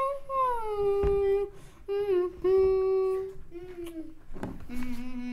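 A child humming a tune without words: a few held notes, the first sliding down in pitch, then a long, steady lower note near the end.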